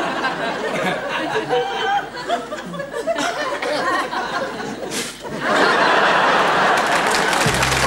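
Studio audience laughing, then breaking into loud applause about five and a half seconds in; the sitcom's closing theme music starts in low notes just before the end.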